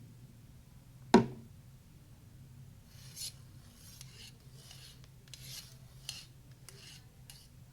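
Foley sound effects: one sharp knock about a second in, then six or seven short rasping, scraping strokes.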